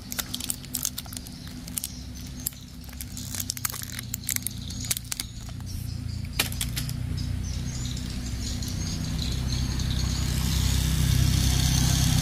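Clicks and small knocks of a plastic toy train motor unit and an AA battery being handled and snapped into place. Over the last few seconds a low rumble grows steadily louder.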